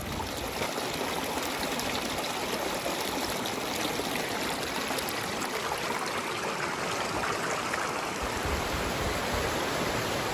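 Steady rush of water running over the rocks of a shallow river's rapids.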